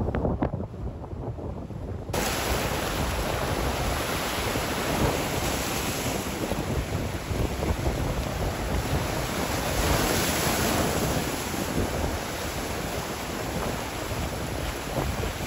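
Choppy sea waves washing and breaking around a capsized yacht's hull and floating wreckage, with wind buffeting the microphone. The sound turns abruptly fuller and hissier about two seconds in.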